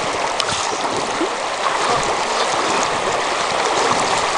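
Shallow river water rushing steadily over a gravel riffle.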